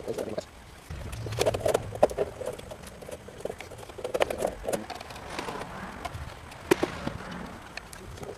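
Scattered clicks and knocks of PVC drain fittings and rubber pipe couplings being handled and pushed together, with the loudest knock near the end.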